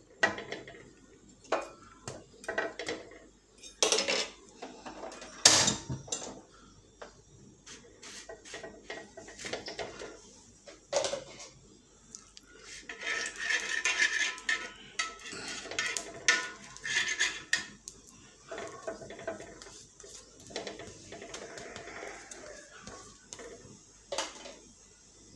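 Irregular clinks and knocks of metal kitchen utensils and cookware, scattered through the stretch, the sharpest about five and a half seconds in.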